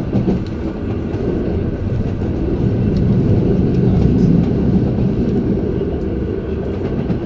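Running noise of an MI09 double-deck RER A train, a steady low rumble heard from inside the carriage. The rumble swells about three seconds in and eases a little after.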